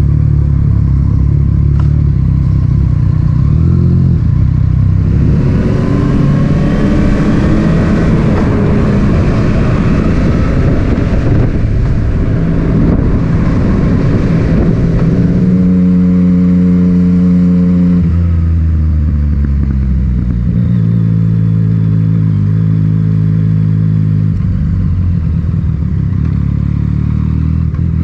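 Yamaha MT-09's three-cylinder engine running through an Akrapovic titanium exhaust under way: it pulls hard for several seconds, then holds steady revs with a couple of gear changes, and rises in pitch again near the end.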